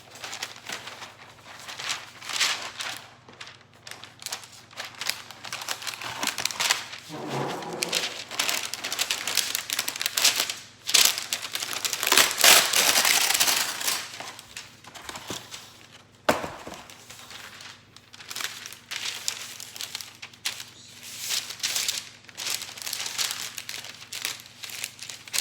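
Parchment paper crinkling and rustling in irregular bursts as it is handled, loudest around the middle.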